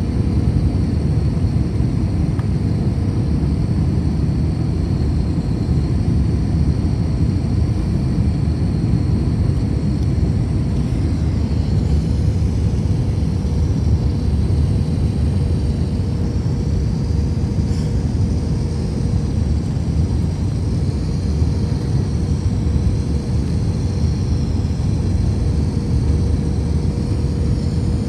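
Steady low rumble of an Airbus A321's engines and rushing air, heard from inside the passenger cabin on the approach, with a faint steady hum running through it.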